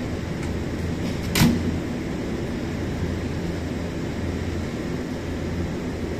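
Nankai 2300 series electric train standing at the platform with its onboard equipment running, a steady low hum. A single sharp clunk about one and a half seconds in.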